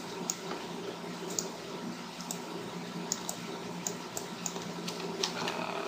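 Scattered clicks of a computer mouse and keyboard, irregular and a few a second, over a steady low hum.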